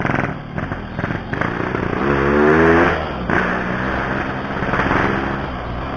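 Yamaha RX-King 135cc two-stroke single-cylinder motorcycle engine running under way, the throttle worked so that its pitch rises and falls, loudest about two to three seconds in.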